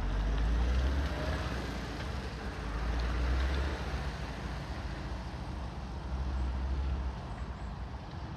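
A moving vehicle: steady road and engine noise, with a deep rumble that swells and fades three times.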